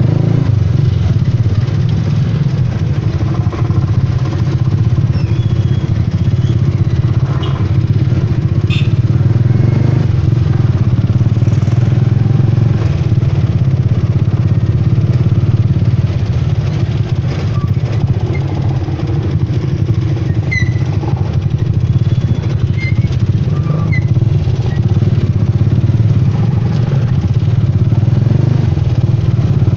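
Motorcycle engine running steadily close by, a constant low drone, with street traffic around it.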